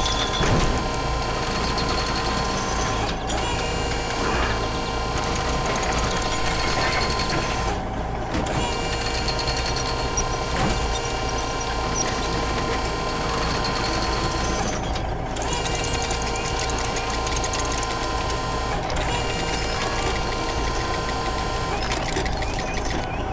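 Steady machinery sound effects of construction vehicles at work: a continuous engine-like hum with a mechanical whirring on top, which drops out briefly a few times.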